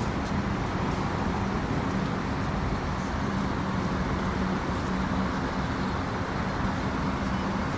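Steady road-traffic noise: an even noise with a faint low hum running under it.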